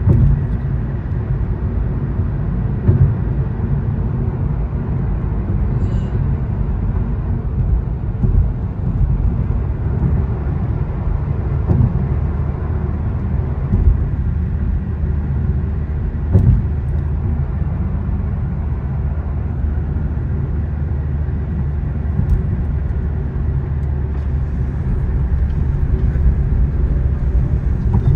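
Steady low road and engine rumble of a car at highway speed, heard from inside the cabin, with a few brief thumps along the way.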